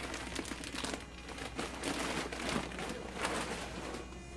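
Crinkling and rustling of large plastic dog food bags as they are handled and pulled from a store shelf, in irregular bursts.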